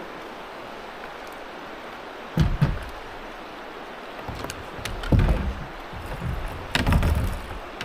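Several dull thumps and knocks against a kayak hull, in three bunches: about two seconds in, around the middle, and near the end, over the steady rush of river water.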